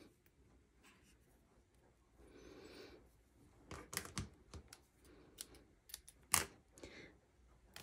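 Faint rustling of thin thread being tied into a bow, then small craft scissors clicking as they are picked up about four seconds in and snipping the thread ends, the sharpest snip about six seconds in.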